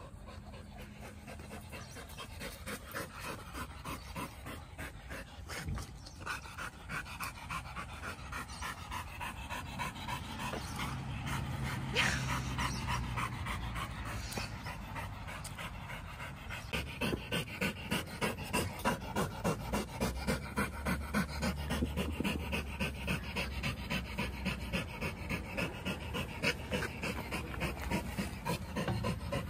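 Dogs panting hard with a quick, even rhythm, louder in the second half. A single short sharp sound comes about twelve seconds in.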